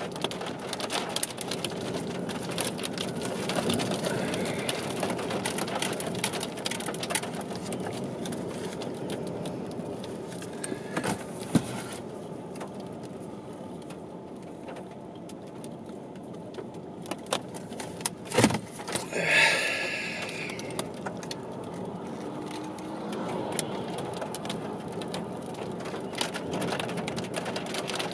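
Thunderstorm wind and rain rushing steadily, with a dense patter of small taps and rattles. The hiss eases for a few seconds about twelve seconds in, and a sharp knock comes about eighteen seconds in.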